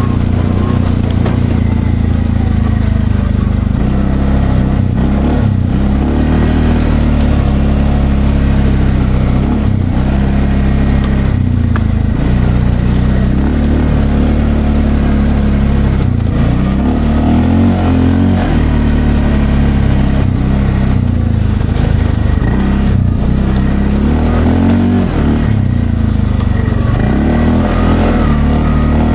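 Linhai Landforce 550L ATV engine running as it is ridden off-road, its pitch rising and falling again and again with the throttle.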